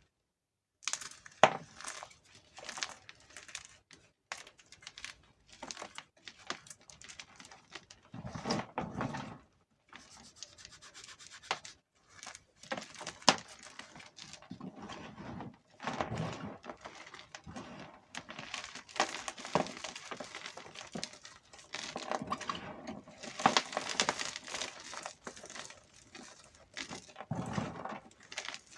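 Crispy crunching and crackling of blocks of gym chalk being crushed and crumbled between fingers, coming in uneven spells, with the rub of the powder between them.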